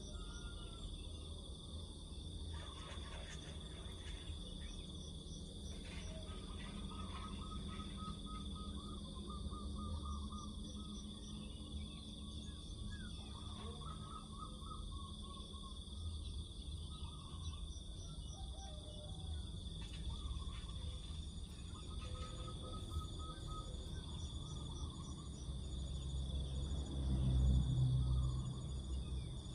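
Crickets keep up a steady high drone while birds chirp in short repeated phrases, over a low rumble that swells briefly near the end.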